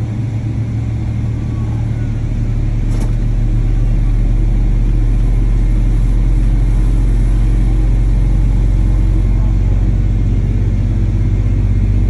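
Boeing 777-300ER's GE90-115B jet engine spooling up during start, heard from inside the cabin: a low rumble that grows louder about two to four seconds in, then holds steady.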